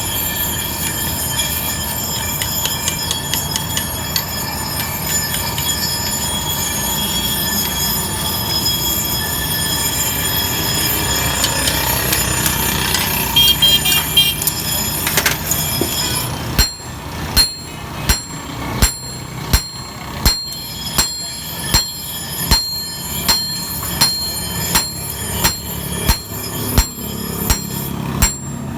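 Steady machine noise with high ringing tones, then, after about sixteen seconds, a hammer striking metal on an anvil at an even pace of about three blows every two seconds, each blow ringing, as an old axe head is forged.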